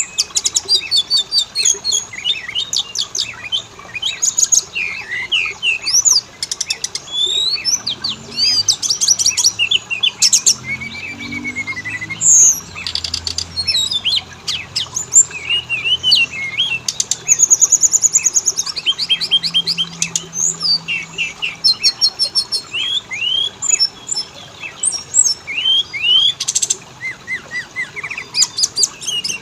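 Oriental magpie-robin singing a long, rich and varied song of clear whistled notes, rapid trills and buzzy phrases, with only short pauses between phrases.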